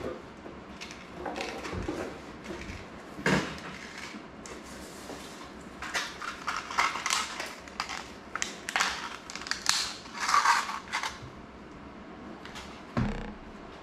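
Small parts and tools being handled on a tabletop: scattered clicks and knocks, with a stretch of crinkling, rustling handling noise in the middle and a dull knock near the end.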